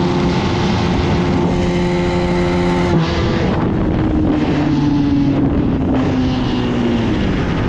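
Bajaj Pulsar 220F single-cylinder engine held at high revs in second gear under full throttle, with wind rushing over the microphone. About three seconds in the throttle is closed, and the engine note falls steadily as the bike slows at the end of the run.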